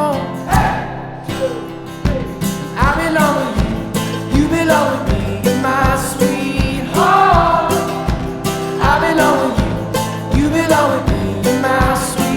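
A song playing: a voice singing over guitar and a steady beat.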